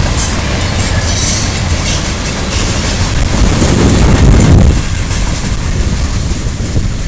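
Coal cars of a freight train rolling past close by: steady heavy rumble and wheel clatter on the rails, with a high wheel squeal about a second in and a louder swell of rumble around four seconds in.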